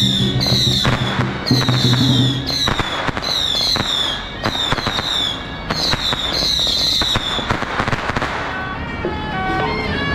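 A string of firecrackers crackling in a rapid run, with runs of high, falling whistle-like sounds over it. The crackle thins out about eight seconds in as music comes up.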